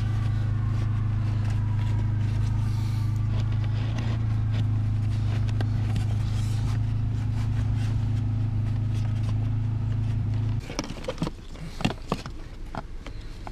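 Steady low motor hum that cuts off suddenly about ten and a half seconds in, followed by scattered clicks and scrapes of plastic as the cabin-air filter housing under the dashboard is handled.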